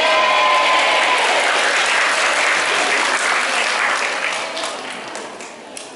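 Audience applauding, with a few voices calling out at the start; the clapping fades away over about five seconds.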